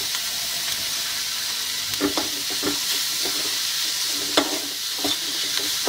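Chopped onions and spices sizzling in hot oil in a metal kadai while a metal ladle stirs them. The ladle scrapes and clinks against the pan, with several ringing clinks from about two seconds in.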